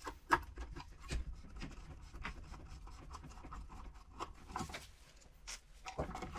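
Irregular small clicks, taps and scrapes of hands and a screwdriver working on the wiring and controller inside a Xiaomi electric scooter's deck compartment, with a sharper click just after the start.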